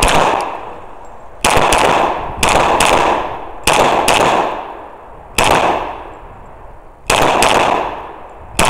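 Semi-automatic pistol fired mostly in quick pairs of shots, a pair every one to two seconds. Each shot is a sharp crack whose echo trails off before the next.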